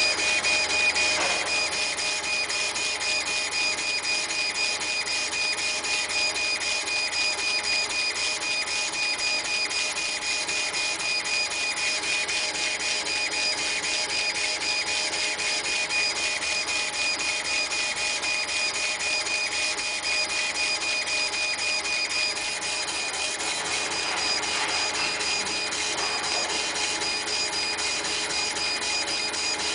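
CNC laser engraver with a wheel-type rotary attachment running. Its stepper motors give a steady whine over a fast, even chatter.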